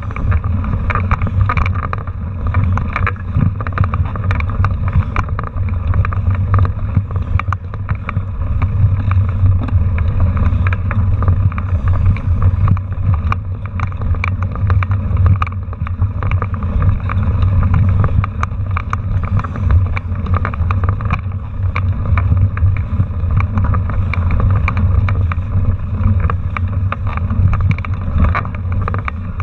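Mountain bike ridden over a rough dirt trail, heard through a camera mounted on its handlebar: a steady low rumble and wind noise on the microphone, with constant rattling and small knocks from the bumps.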